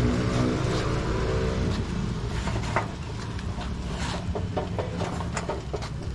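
A motor running with a steady low hum that drops in level about three seconds in, with scattered sharp clicks and knocks.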